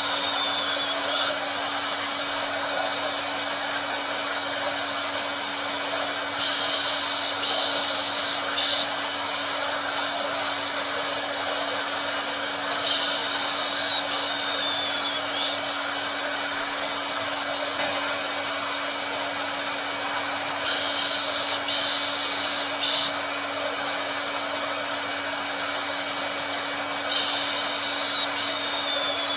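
Hair dryer running steadily: an even rush of blown air over a low motor hum. A brighter, higher hiss swells in for a couple of seconds about every six or seven seconds.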